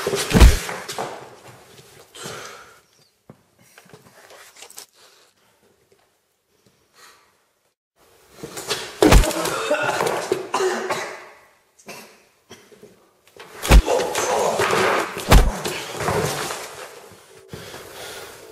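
Four heavy thuds, each a sharp hard impact. Rough scuffling noise runs around the later ones. There is a near-silent lull in the middle.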